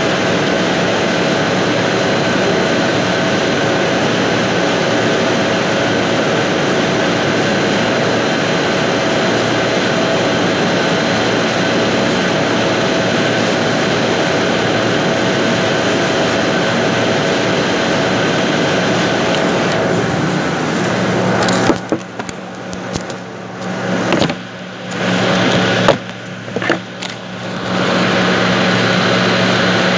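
Steady drone of factory machinery with a constant hum. About two-thirds through, it turns muffled and uneven for several seconds, broken by knocks as the phone recording it is picked up and handled, then the drone comes back.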